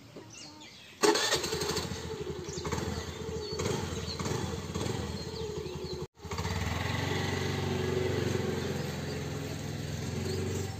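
Honda Activa scooter's single-cylinder four-stroke engine starting about a second in and running steadily, with a brief dropout near the middle before it runs on.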